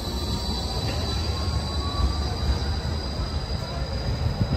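Gold Coast G:link light-rail tram moving past on its rails, with a steady high-pitched wheel squeal over a low running rumble. A fainter whine falls slightly in pitch over the first couple of seconds.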